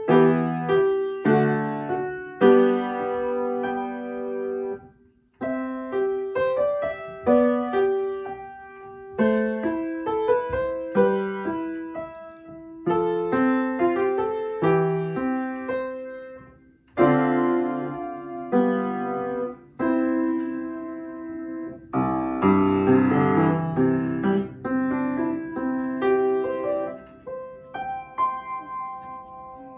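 Upright acoustic piano played solo: a melody in short phrases with two brief breaks between them, turning fuller, with held low notes, in the last third.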